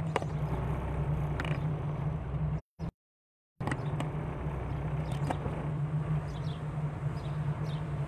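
Car engine and road noise heard from inside a moving car: a steady low hum with scattered light clicks and ticks. The sound cuts out completely for about a second near the middle.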